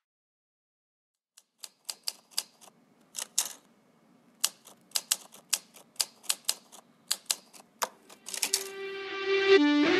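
A run of sharp, unevenly spaced clicks, like keys being struck, over a faint low hum at the start of a song. About eight and a half seconds in, the music comes in with held chords.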